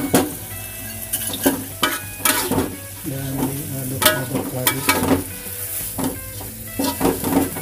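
Metal spatula scraping and knocking against a wok as bean sprouts are stir-fried, over a steady sizzle of frying. The strokes come at irregular intervals, about nine in all.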